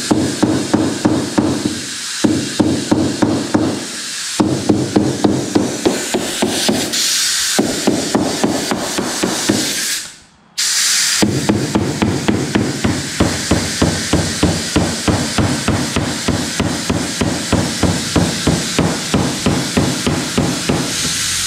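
Compressed air from a blow-gun nozzle hissing into the seam between a fiberglass mold and its plug, to break the airlock and push them apart. Throughout there is a rapid, regular knocking, several times a second, with a low hum. The air cuts out briefly about ten seconds in, then starts again.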